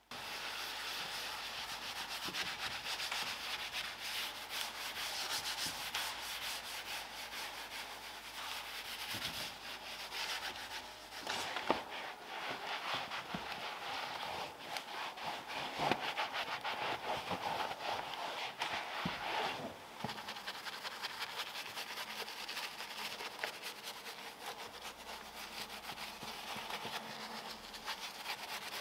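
Steady scratchy scrubbing of a car's surfaces, many quick rubbing strokes, with a couple of sharp knocks midway.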